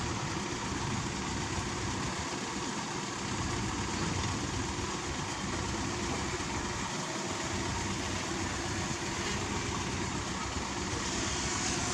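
Heavy diesel engine of construction machinery running steadily.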